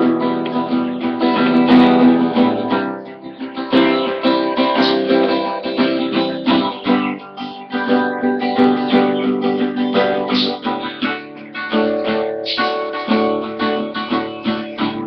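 Acoustic guitar strummed with a pick in a steady chord pattern, the strokes alternating between harder and softer hits. It dips quieter about three seconds in, then comes back up.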